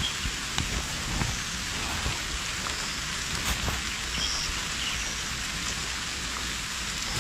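A steady hiss with a low rumble underneath and a few faint, scattered ticks and rustles.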